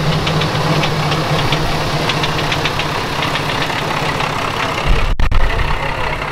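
Underfloor diesel engine of a Kanto Railway KiHa 310-series railcar idling with a steady low hum, heard close up from beside the car. A brief low thump comes about five seconds in.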